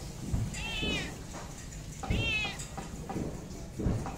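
Domestic cat meowing twice, about a second and a half apart; each meow is short and high, rising then falling in pitch.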